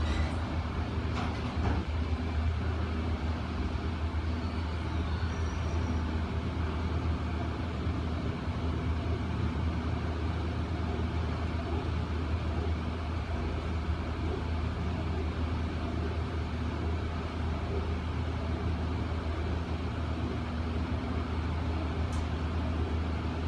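Observation-tower elevator climbing its shaft: a steady low hum and rumble of the lift running without letting up.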